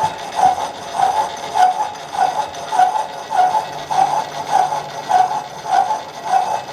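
Drill press running a boring bar through an aluminum sleeve under power feed: a steady machine hum with an even, repeating chirp about every 0.6 s.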